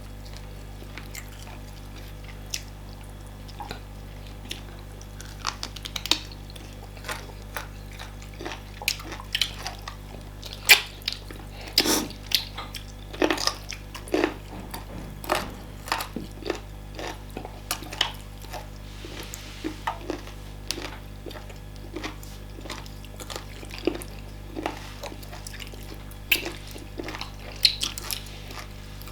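Close eating sounds of starch fufu and banga soup with assorted meat: irregular wet chewing, smacking and sticky clicks, busiest in the middle.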